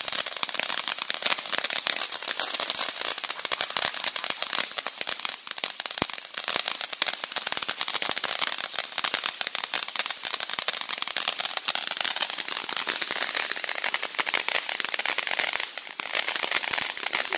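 Consumer firework crackling: a dense, unbroken stream of small sharp pops from crackling stars going off as they fall and land.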